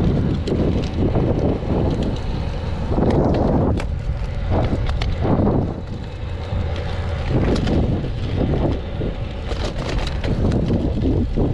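Wind buffeting the microphone of a road cyclist riding downhill at speed: a loud, uneven rumble, with tyre noise on asphalt beneath it and a few faint clicks.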